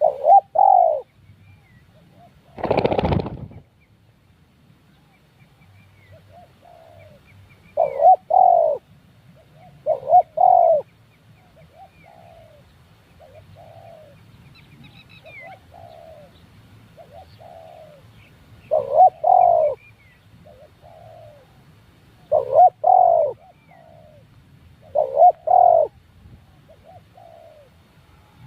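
Doves cooing over and over: loud, close two-part coos come every few seconds, with fainter coos answering in between. Faint high bird chirps sit behind them. A brief, loud rustling noise comes about three seconds in.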